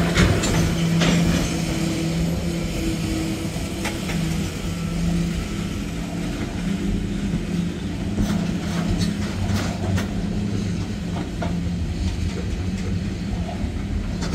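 Freight train of loaded tank cars rolling past: steel wheels clicking now and then over rail joints, over a steady low hum of the moving cars.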